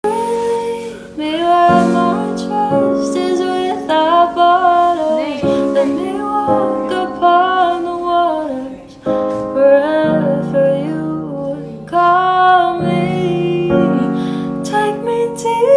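Music: a woman singing a slow melody with piano accompaniment.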